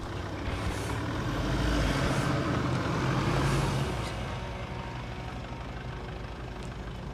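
Jeep Liberty (Cherokee KJ) driving off road: engine and driving noise with a steady low hum, swelling louder for a couple of seconds midway, then easing back.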